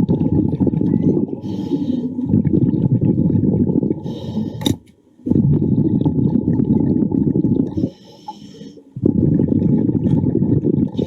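A diver breathing underwater: long noisy bursts of exhaled air bubbles, each a few seconds long, with short pauses between breaths where a fainter hiss comes through.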